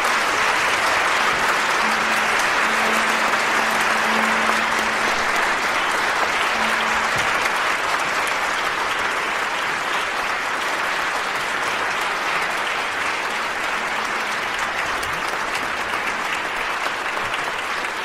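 A dense, steady patter of many small impacts, fading in just before and holding even throughout, with a faint low hum under it for the first few seconds.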